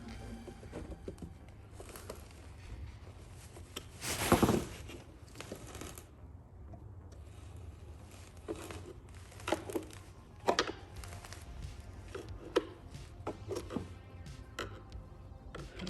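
Hard plastic parts of a glove box latch assembly being handled and pried apart, making scattered sharp clicks and knocks. There is a louder scraping rustle about four seconds in.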